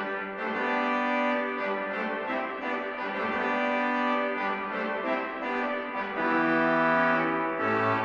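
A pipe organ's trumpet stop, a brilliant reed stop, playing a melody alone, one note after another. A lower note comes in near the end.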